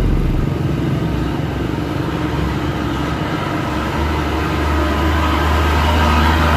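Hino dump truck's diesel engine running as it drives past close by, with the low rumble growing louder about four seconds in as the truck comes alongside.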